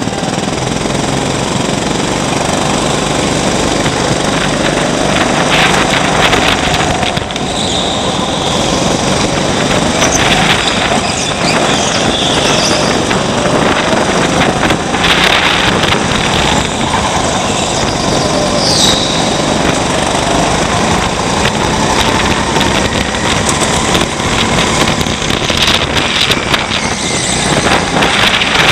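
200cc Honda rental go-kart engines pulling hard from the start, heard loud from the driver's seat with other karts close by. The engine note rises and falls again and again as the kart accelerates and lifts through the corners.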